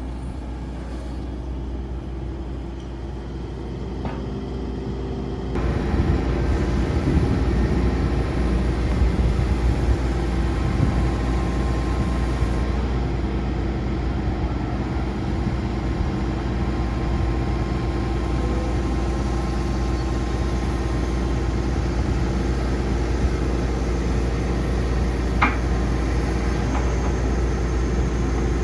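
Hitachi ZX135US-3 hydraulic excavator's diesel engine running steadily. It gets louder about five seconds in and holds there, with a single short click near the end.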